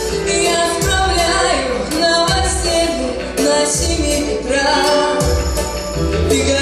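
Russian Gypsy-style song music: a melody line that glides up and down over a pulsing bass.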